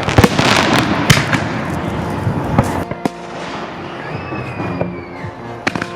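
Fireworks going off: a string of sharp bangs over dense crackling, the crackle thinning out about three seconds in while scattered bangs continue.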